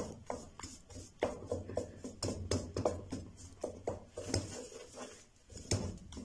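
Wooden spatula scraping and tapping against a metal kadhai while stirring and pressing lumps of melting jaggery: irregular scrapes and knocks, several a second.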